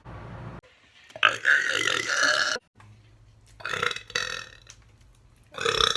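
A woman burping three times: a long, loud burp of about a second and a half, then two shorter burps.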